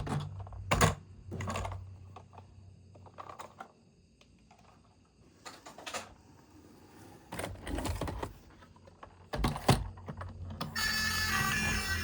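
Scattered clicks and knocks of plastic toys and packaging being handled, with a low hum under parts of it. Near the end, music starts and continues.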